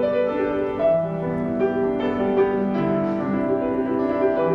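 Background piano music: slow, held notes and chords that change about once a second.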